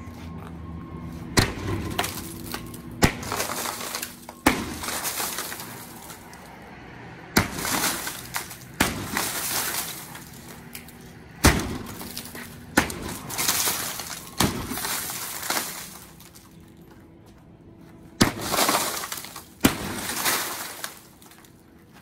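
Storefront plate-glass door and window panes being smashed with a long-handled tool: about ten sharp blows, irregularly spaced, each followed by a rush of shattering glass and shards tinkling down as the panes crumble into small pieces.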